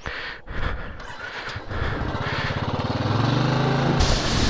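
Royal Enfield Himalayan's single-cylinder engine pulling unevenly at low revs on a rough trail, then revving up and holding a steady, higher note from about halfway. Near the end there is a sudden loud rush of noise.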